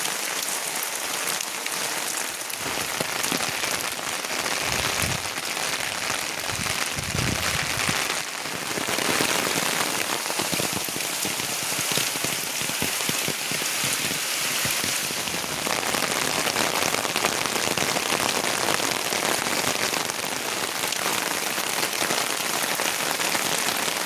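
Heavy rain falling steadily, a dense even hiss of drops on surfaces, with a couple of brief low rumbles about five and seven seconds in.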